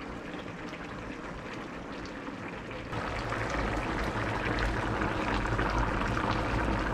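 Fish stew boiling in a disc plow pan over a wood fire: a steady bubbling hiss with small scattered pops. About three seconds in it gets abruptly louder.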